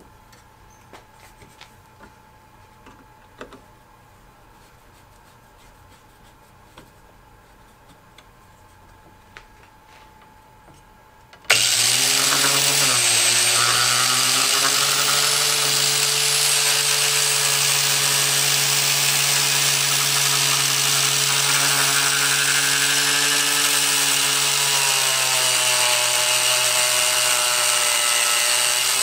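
A few light clicks and taps of tools being positioned, then a Harbor Freight angle grinder with a cutoff wheel switches on suddenly about a third of the way in and runs steadily, cutting through 3/16-inch steel bar. Its pitch dips briefly just after it starts and shifts again near the end.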